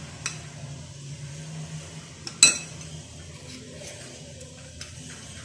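A spoon clinks once, sharply, against a ceramic bowl about halfway through, with a few faint taps of spoon on bowl while a face-mask paste is mixed. A steady low hum runs underneath.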